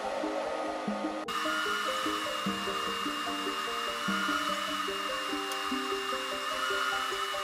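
Background music with short stepped notes over the steady whirring of an Anycubic Photon S resin 3D printer running. About a second in, the whir changes and a thin high whine joins it.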